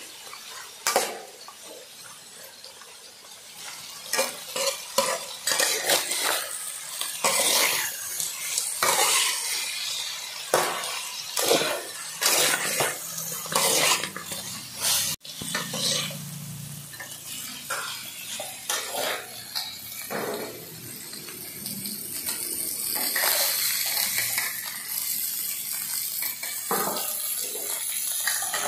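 Metal spatula scraping and clanking against an aluminium wok as pieces of frog are stir-fried, with oil sizzling underneath. The strokes come thick and fast in the first half, giving way to a steadier sizzle with occasional scrapes.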